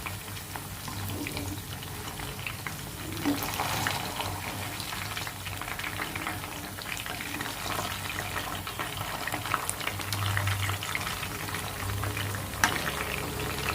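Marinated chicken pieces frying in hot oil in a kadai: a steady sizzle with fine crackles while the pieces are turned over. A single sharper tap comes near the end.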